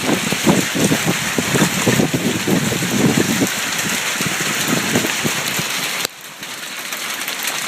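Hail pelting down, a dense patter of many small impacts. The sound drops suddenly and becomes quieter about six seconds in.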